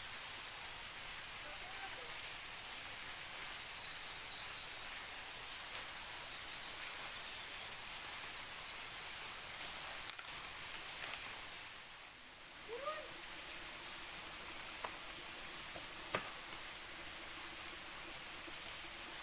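Steady high-pitched drone of a forest insect chorus over a soft background hiss, with a short rising animal call about two-thirds of the way in and a few sharp clicks after it.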